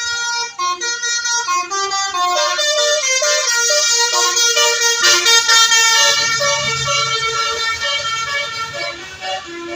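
Bus 'telolet' basuri musical horn playing a fast tune of short stepped notes, several tones sounding together.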